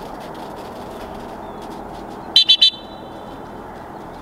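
Three quick, loud, high-pitched blasts on a dog training whistle, the recall signal calling the retriever back in.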